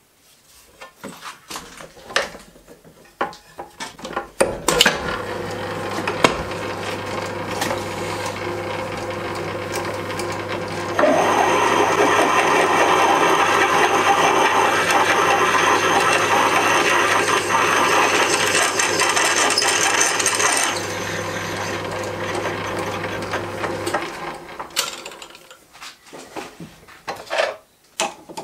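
Axminster CO micro lathe starting up and running steadily, then a 13 mm twist drill cutting into the metal workpiece for about ten seconds, a louder dense grinding noise over the motor hum. The cutting stops as the drill is backed out, the lathe runs on briefly and is switched off, with metal clicks of handling at the start and end.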